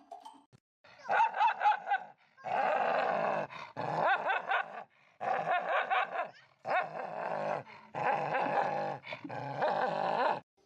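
A dog making a run of about seven drawn-out vocal calls, each roughly a second long and wavering in pitch, with short gaps between them.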